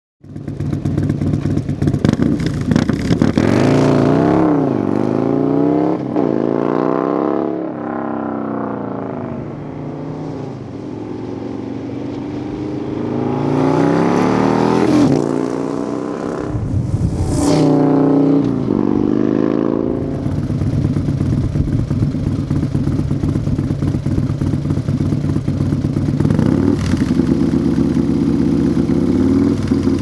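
Harley-Davidson 120R V-twin (120 cubic inch) running through a Feuling triple-stepped 2-into-1 exhaust. It accelerates hard with the pitch climbing and dropping back several times, is loudest just past halfway, then settles into a steady idle about two-thirds in, with one short blip of the throttle near the end.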